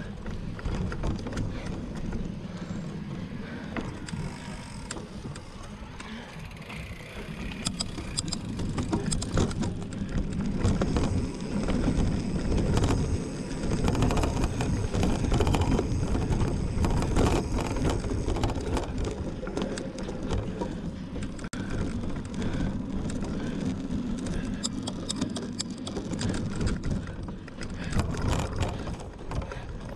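Mountain bike rolling over rough dirt trail: a steady rumble with frequent rattles and clicks from the bike, growing louder from about a quarter of the way in to past the middle.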